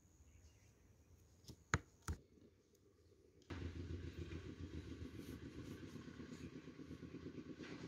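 Three quick, sharp knife chops on a wooden cutting board, then about three and a half seconds in a steady engine hum starts abruptly and runs until it cuts off just before the end.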